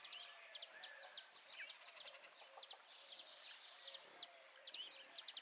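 Insects chirping: a high, steady trill broken by rapid repeated chirps, with faint bird calls underneath.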